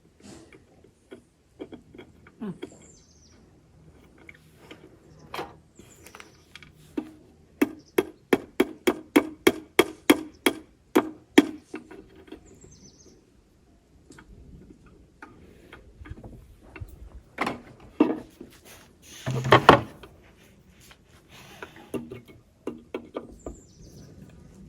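Small handles being fitted back into a wooden drawer: scattered clicks and knocks, with a run of quick light taps, a few a second, in the middle. A louder knock comes near the end.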